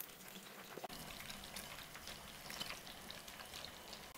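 Faint sizzling and crackling of fish pieces frying in hot mustard oil in a frying pan, with small pops scattered throughout.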